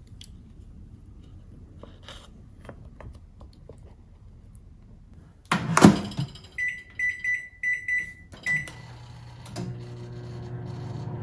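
Microwave oven: its door is shut with a thunk about halfway through, its control panel gives a run of short high beeps as buttons are pressed, and then it starts heating with a steady low hum. Before that there are faint light clinks and rustles as rice porridge is poured from a pouch into a ceramic bowl.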